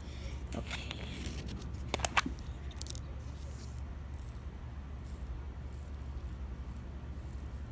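Light clicks and rustling as small containers of foam beads and glitter are handled and added to slime, the sharpest clicks in the first two seconds, over a steady low hum.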